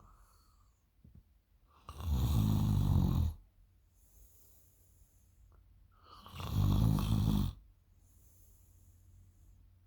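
A sleeping girl snoring really loud: two long snores of about a second and a half each, roughly four and a half seconds apart. Each is followed by a softer, breathy exhale.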